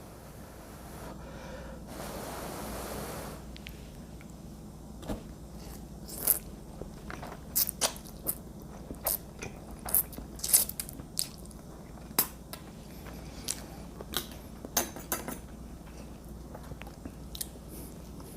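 Close-miked chewing of a mouthful of shrimp-and-mussel fettuccine, with many sharp, irregular wet mouth clicks. A short breathy rush of noise comes about two seconds in.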